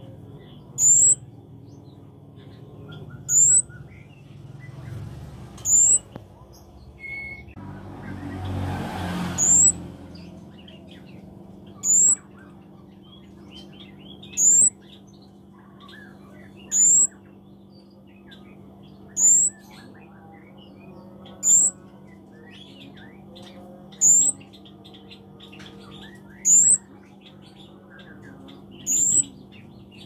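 Flowerpecker (cabe-cabean) calling: a loud, short, very high chirp that rises in pitch, repeated about every two and a half seconds, with faint softer twittering between the calls. A brief rustling noise swells about eight to ten seconds in.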